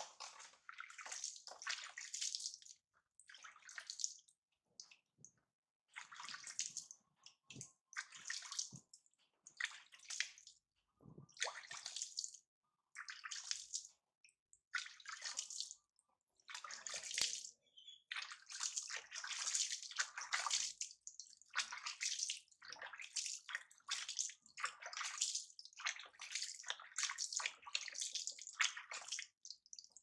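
Water splashing and pouring as a baby monkey is hand-washed over a plastic basin, water running off it into the basin and onto a tiled floor, in many short irregular bursts with brief gaps between.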